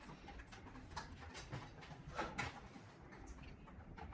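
Faint clicks and rubbing of small hand tools tightening screws in the housing of a Thinkrider X7 smart bike trainer, with a slightly louder click about two seconds in.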